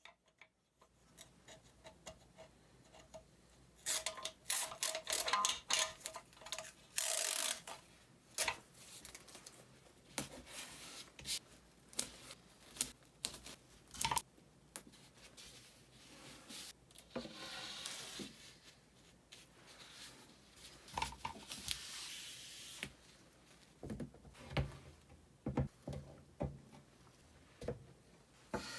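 Workbench handling noise from wooden boards and clamps: scattered knocks and clicks, with a few longer scraping or rubbing passes of about a second each.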